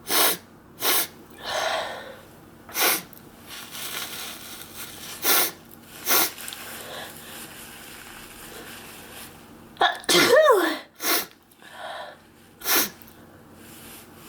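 A person sneezing over and over from sneeze powder: a string of short, sharp sneezes, with one longer voiced sneeze about ten seconds in.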